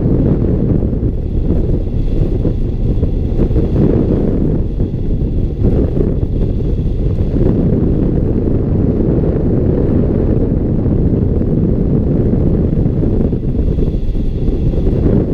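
Wind rushing over a hang glider-mounted camera's microphone in flight: a steady, loud, low rumble of wind noise.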